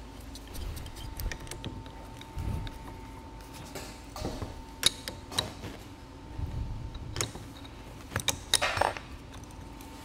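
Two adjustable wrenches clinking and scraping against each other and the steel nut as they are fitted and turned to tighten the bolt on a hydraulic control cable's sleeve. Scattered metal clicks, most of them in the second half.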